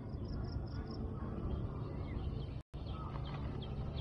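Small birds chirping outdoors: a quick run of about five high chirps near the start and a few more near the end, over a steady low rumble. The sound cuts out for an instant about two-thirds of the way in.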